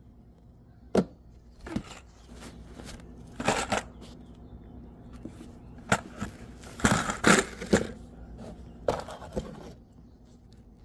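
Intermittent workshop handling noises: sharp knocks and clatters of parts set down and picked up, with short rustles in between, as greased wheel bearing and hub parts are handled.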